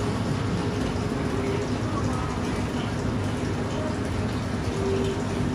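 Steady rushing of water circulating in an ice bath tub, with its pump running.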